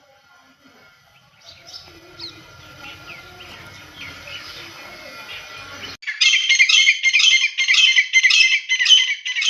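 Faint, scattered songbird chirps. About six seconds in, a loud, rapid run of repeated high calls starts abruptly: the call of the grey francolin.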